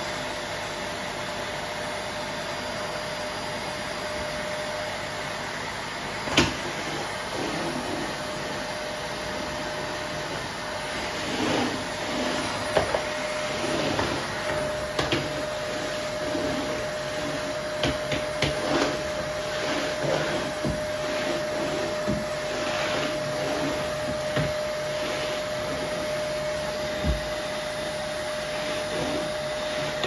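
Canister vacuum cleaner running steadily over a wooden floor, its motor giving a constant whine under the rush of air. There is a sharp knock about six seconds in, and frequent short knocks and swells of sound from about eleven seconds on.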